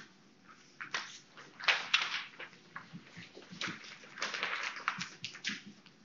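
A sheet of paper being folded into a paper airplane: dry rustling and crackling, with longer scraping swipes about two seconds in and again around four to five seconds in as creases are pressed down.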